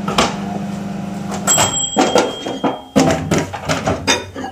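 Microwave oven running with a steady hum that stops about a second and a half in, followed by a string of clicks and knocks as its door is opened and the bowl of couscous is taken out.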